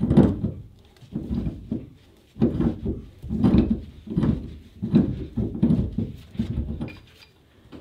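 A man grunting with effort in a series of strained heaves, nearly one a second, as he pulls on a pipe wrench to break a seized pipe extension loose from a boat's seacock.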